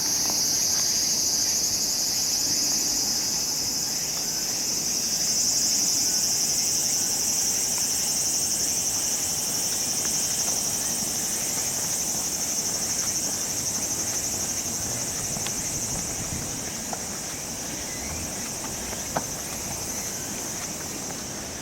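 Steady, high-pitched chorus of insects, continuous without a break and easing off slightly toward the end, with two short clicks near the end.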